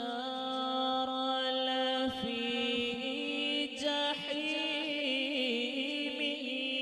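A man reciting the Quran (tilawat) into a microphone in long, drawn-out melodic notes, his voice bending through ornamented turns about halfway through.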